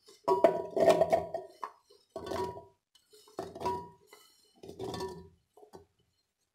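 Chopped guava pieces dropped into a stainless-steel mixer-grinder jar in four batches, each a clatter with a brief metallic ring from the jar.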